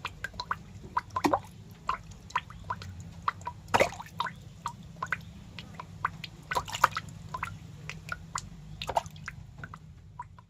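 Snail feeding, close up: irregular small wet clicks and crackles, a few louder ones, over a steady low hum.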